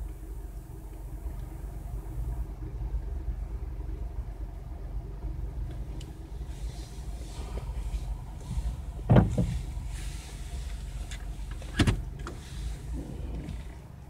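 Low, steady rumble of a car heard from inside its cabin, with two sharp knocks about nine and twelve seconds in.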